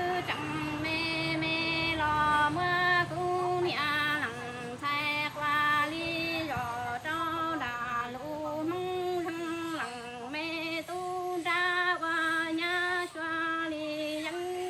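A woman singing kwv txhiaj, traditional Hmong sung poetry, unaccompanied: long held notes that step up and down in pitch, broken by short pauses for breath.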